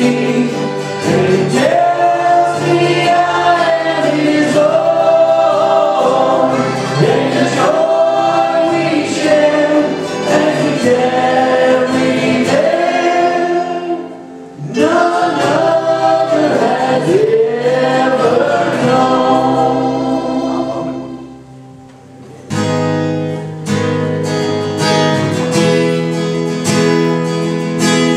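Live worship band playing a gospel song: vocals over strummed acoustic guitars, electric guitar and keyboard. The singing stops about three-quarters of the way through, leaving the guitars strumming an instrumental passage.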